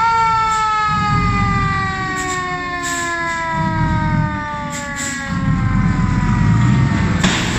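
A siren rising quickly to pitch and then winding slowly down in one long falling tone, over the low steady running of the dump truck's engine.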